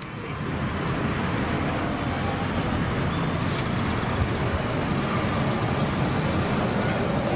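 A motor vehicle engine running steadily nearby. It builds up over the first second, then holds level.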